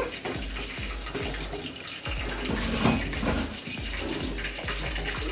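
A wooden cooking stick presses, turns and scrapes stiff ugali dough against the inside of a metal pot, giving repeated soft knocks and scrapes over a steady hiss.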